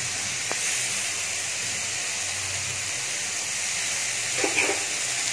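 Onion, tomato and spice masala frying in oil in a kadhai, a steady sizzling hiss. A single sharp click about half a second in, as the steel bowl or spatula knocks the pan.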